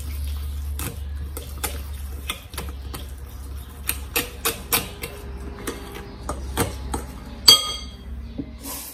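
Metal spoon stirring a wet flour batter in a glass bowl, clicking and scraping against the glass many times at an irregular pace. Near the end one louder clink of the spoon on the glass rings briefly.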